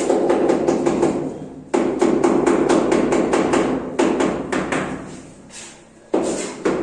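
Rapid hammering: runs of quick, even strikes, about eight a second, that start abruptly about every two seconds and fade out.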